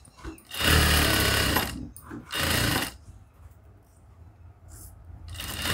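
Industrial sewing machine stitching fabric in short runs: a burst of about a second, a shorter burst of about half a second, a pause, then running steadily again near the end.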